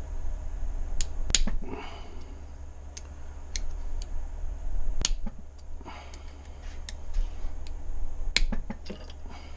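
Scattered sharp metal clicks and taps of hand tools working the bolts on a pressure-washer pump, at irregular intervals over a steady low hum.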